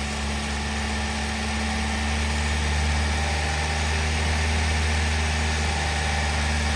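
Hyundai Grand i10 Nios engine idling steadily while being warmed up to bring on its newly replaced radiator cooling fan, with no knocking from the fan; the sound grows slightly louder about two seconds in.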